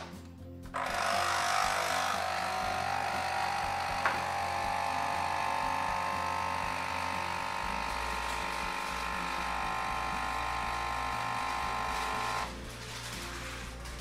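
Nespresso capsule machine brewing an espresso: a click as the lever is shut, then its pump starts about a second in and runs steadily as the coffee pours, stopping about a second and a half before the end.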